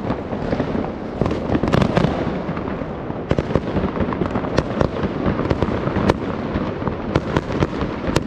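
Many fireworks going off at once: a continuous rumble and crackle of salutes with frequent sharp bangs at uneven intervals, some near and some further off.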